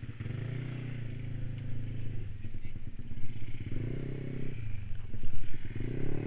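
Motor scooter engine pulling away from a standstill and accelerating, its pitch rising and dropping back a few times as the throttle opens and eases.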